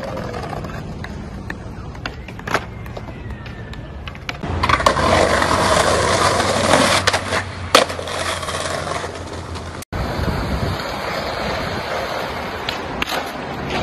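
Skateboard wheels rolling over pavement, with a few sharp clacks of the board. About halfway through, a rougher, louder stretch of rolling over brick paving takes over. It cuts off suddenly and gives way to steadier rolling on concrete.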